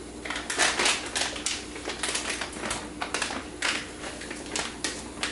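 Plastic food packets crinkling and rustling as dried fruit is shaken out into a small pot, in quick irregular crackles.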